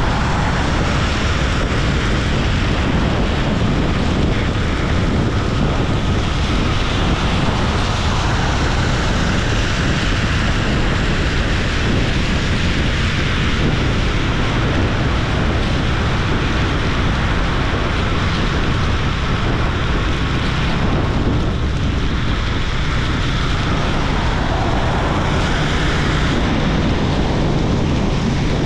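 Wind rushing over a GoPro's microphone on a moving motorcycle, a steady, loud rumble mixed with road and engine noise.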